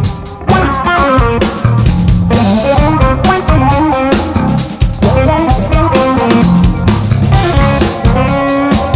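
Contemporary fusion jazz quartet playing: drum kit, electric guitar, bassoon and electric bass, with melodic lines over a steady drum groove.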